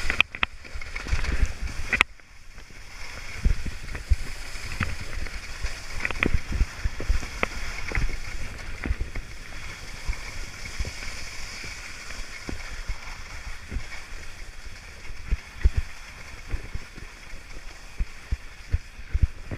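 Skis running fast over soft, wet spring snow: a steady hiss and scrape broken by many short knocks and chatters, with low wind buffeting on the microphone.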